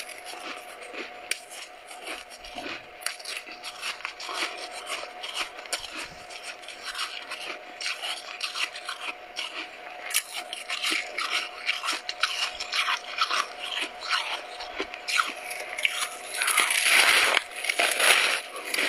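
Freezer frost crunching and crackling as it is bitten and chewed, a quick string of small crunches that grows much louder and denser about two seconds before the end.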